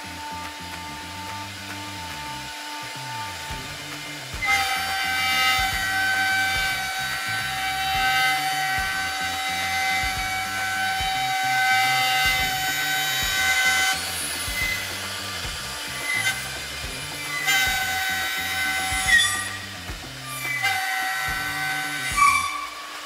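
High-power CNC router spindle milling maple hardwood at 18000 RPM with a deep 38 mm cut and wide stepover. At first the spindle whines steadily at a higher pitch. About four and a half seconds in, the cutter bites into the wood and a loud cutting whine with a slightly lower pitch takes over. Near the end it drops out briefly several times as the passes end and restart.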